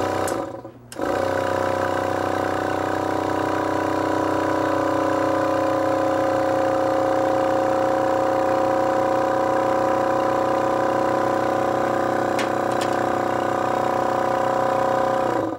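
Electric vacuum pump for the brake booster running: after a short stutter as its turn-on wire is touched to the battery, it settles into a loud steady hum and whine that holds unchanged, then cuts off suddenly near the end.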